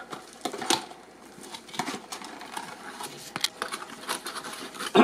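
Irregular rustling and light clicks of plastic lure packs and cardboard boxes being handled, with the camera brushing against clothing near the end.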